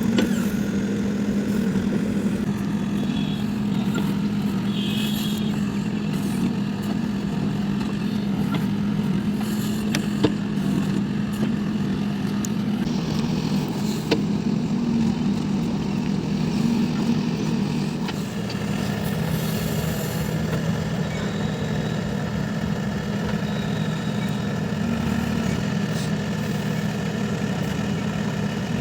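JCB 3DX backhoe loader's diesel engine running steadily, with a few sharp clicks.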